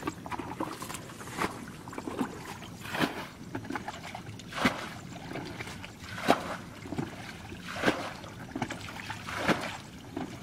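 Shallow muddy water sloshing and splashing in even strokes about every second and a half, as people wade and reach by hand into a drained puddle for fish.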